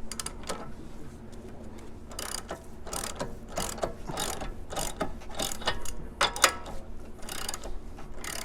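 Ratchet wrench clicking in repeated short strokes while it cranks down the forcing screw of a ball joint puller, working to press a seized ball joint out of a lower control arm.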